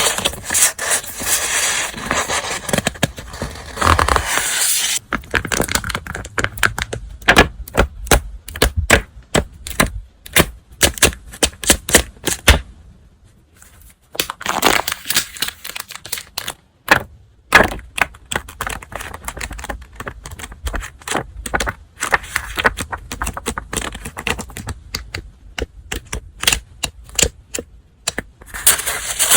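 Crinkly packaging handled close to the microphone. A dense rustle in the first few seconds gives way to many sharp, irregular crackles and clicks, with two brief pauses about halfway through.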